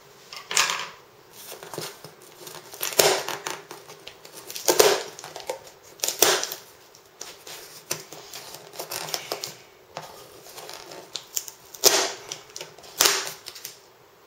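Cardboard shipping box being handled and opened by hand: irregular scrapes, rustles and knocks of cardboard and packing tape.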